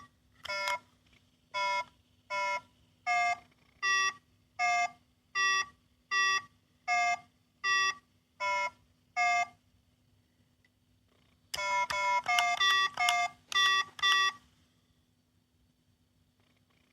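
Small electronic sound-making capsule toy sounding short electronic beep notes of slightly varying pitch. About a dozen come one at a time at an even, unhurried pace, then after a short pause a quicker run of notes plays.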